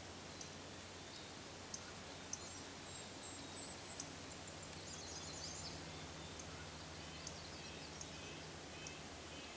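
Wild forest birds calling over a faint steady background hiss: scattered short high chips throughout, a thin high drawn-out whistle about two seconds in, a brief quick twitter around the middle, and a run of short repeated notes near the end.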